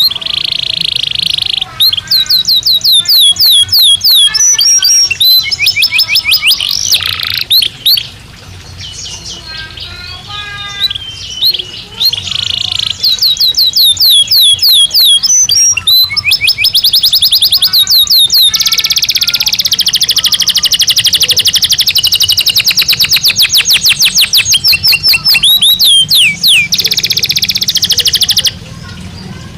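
Belgian canary singing a long, loud song of fast repeated downward-sweeping notes and rapid trills, with one long rolling trill through the middle. The song breaks off abruptly near the end.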